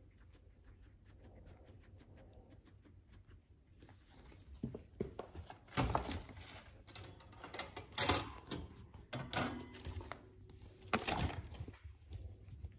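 American guinea pig chewing fresh grass blades, quick faint crunching ticks close to the microphone. From about four seconds in, several louder rustles and knocks break in, the loudest about eight seconds in.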